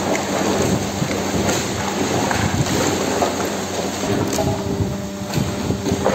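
Electric motor and hydraulic pump of a vertical PET-bottle baling press running with a steady hum, under a dense, irregular crackling.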